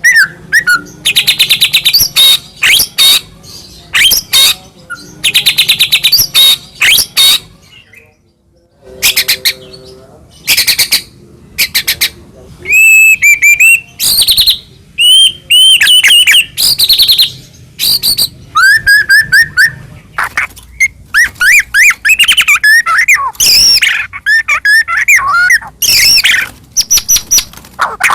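White-rumped shama (murai batu) singing a loud, varied song of rapid chirps, rising and falling whistled phrases and fast trills, with a brief pause about eight seconds in.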